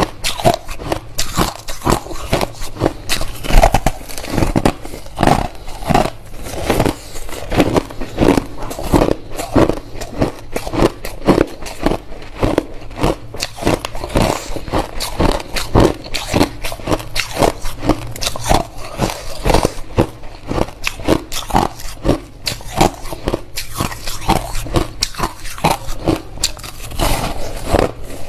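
Crushed white ice being bitten and chewed, a close, continuous run of crunches and crackles, several a second.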